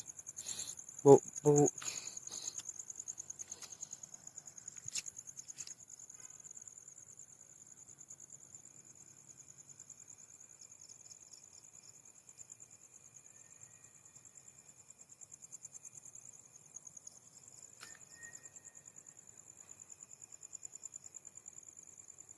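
Crickets trilling steadily: a high, continuous, rapidly pulsing note, with a few faint clicks.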